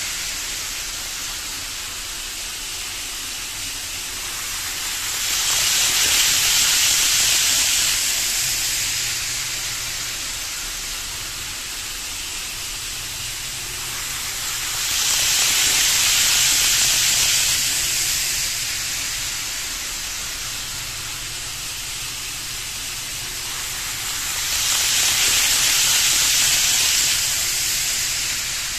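KATO N-gauge 500-series Shinkansen model train running along its track with a steady whirring hiss. It swells up and dies away three times, about ten seconds apart, as the train comes round the loop and passes close.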